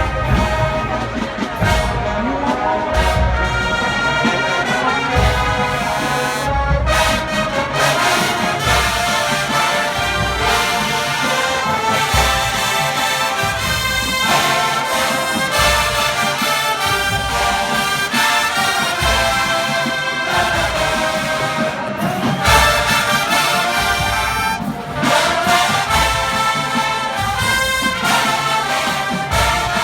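Marching band brass section playing a loud tune, with trumpets and trombones over a steady bass drum beat.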